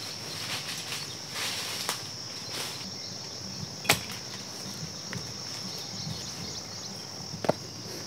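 Steady high-pitched insect drone with two sharp cracks, one about four seconds in and one near the end.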